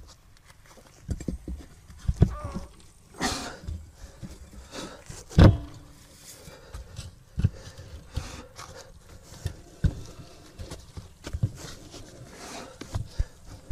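Irregular knocks and clunks of hands-on repair work on an off-road vehicle's front axle, with a scraping sound about three seconds in and a heavy thump, the loudest, about five and a half seconds in.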